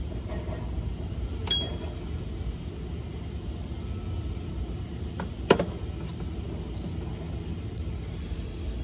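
Metal clinking in an engine bay: a bright clink that rings briefly about a second and a half in, and a louder sharp knock about five and a half seconds in, over a steady low rumble.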